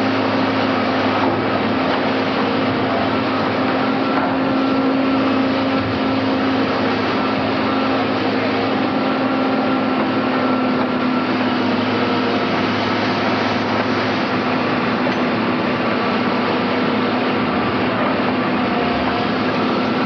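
Heavy construction machine's engine running steadily, a constant hum over an even wash of mechanical noise.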